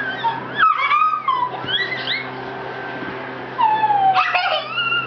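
High-pitched squeals and whimpers gliding up and down in pitch, in two clusters: about half a second in, and again near four seconds, over a steady low hum.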